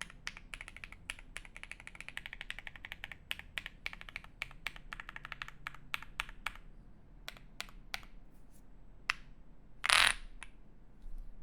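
Jelly Epoch 75% mechanical keyboard with Krytox-lubed Alpaca linear switches on a polycarbonate plate under GMK keycaps, typed on quickly with a dense run of keystrokes. About six and a half seconds in the typing slows to scattered single keystrokes. About ten seconds in comes a short, louder rushing noise, the loudest sound here.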